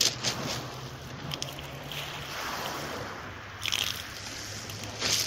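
Sea waves washing on the shore with wind buffeting the microphone, and a few short clicks and rattles about four seconds in.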